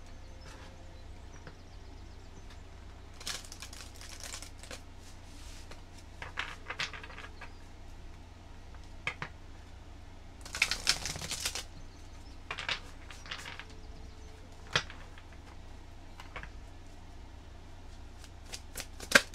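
A deck of tarot cards being shuffled by hand: irregular soft taps and clicks of cards sliding against each other, with a longer burst of quick shuffling about halfway through and a sharp click near the end.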